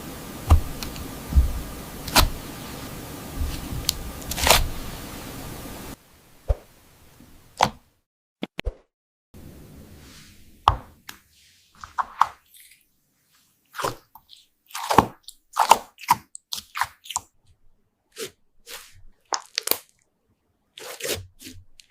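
Hands squeezing and pressing a soft matte slime, making many short, irregular squishing pops and crackles. For the first few seconds there are only a few sharp taps over a steady background hiss.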